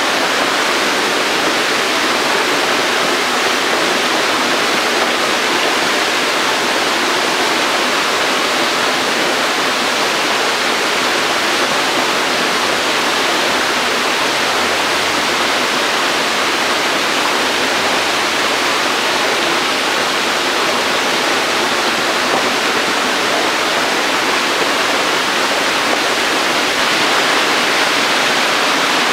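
Steady rushing and splashing of water in a shallow tank crowded with hybrid magur catfish fry, unchanging throughout.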